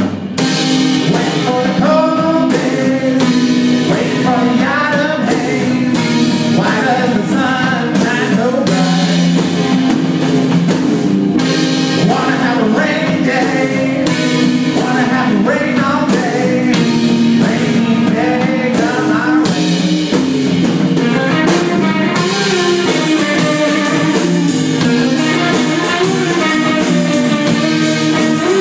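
Live rock band playing on two electric guitars, with singing over sustained low notes.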